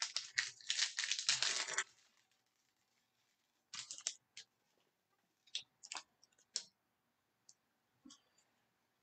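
Baseball trading cards being handled and flipped through: a quick run of papery clicks and rustles for about two seconds, then scattered single card clicks and slides.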